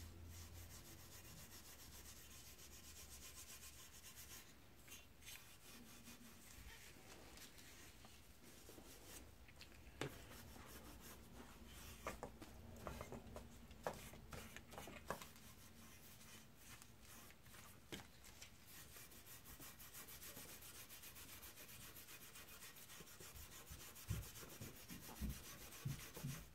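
Faint rubbing and scrubbing of a black walnut drawknife handle in a metal bowl of paint-stripper sludge, the stripper being worked in to lift old paint, with a few light taps against the bowl.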